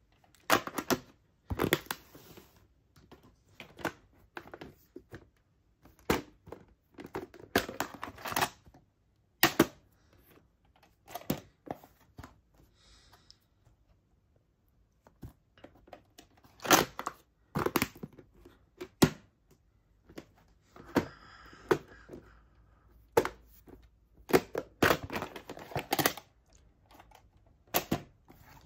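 Clear plastic VHS clamshell cases being handled, opened and closed: irregular clusters of clacks, clicks and rattles of hard plastic.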